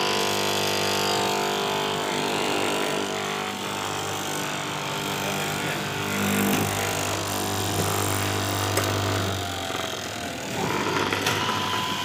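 Electric straight-knife cloth cutting machine running as its blade cuts through a stack of lycra fabric layers, with a steady motor hum. The hum stops near the end.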